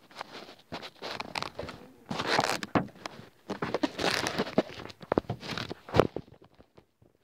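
Irregular rustling, scraping and sharp knocks of handling noise as the recording device is moved about over the paper. The sounds come in bursts and stop about a second before the end.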